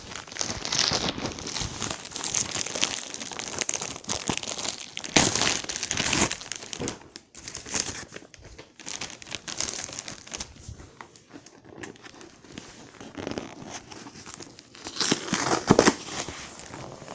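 Packaging crinkling and tearing as a parcel is unwrapped by hand, in irregular rustles, with louder bursts about five seconds in and again near the end.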